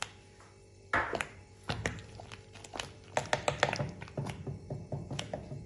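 Silicone whisk stirring mixed whole nuts through a thick, sticky sugar-and-cornflour mixture in a nonstick pot: a thump about a second in, then a quick run of clicks and taps as the nuts knock together and against the pot.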